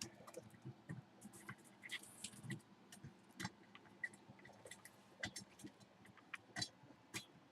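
Faint, scattered clicks and light scrapes of an object being handled and moved about, over quiet room tone.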